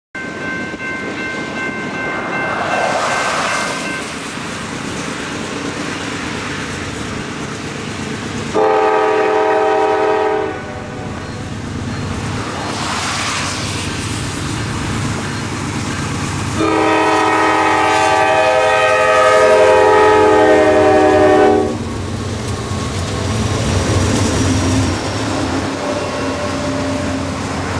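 Norfolk Southern diesel freight locomotive sounding its horn on the approach to a grade crossing. A faint blast comes near the start, a loud two-second blast about nine seconds in, and a long five-second blast from about 17 to 22 seconds. The locomotive and autorack cars then rumble past with steel wheels clattering on the rails.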